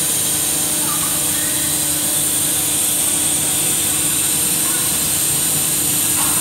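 The Nantes mechanical elephant running, giving out a steady loud hiss over a low hum.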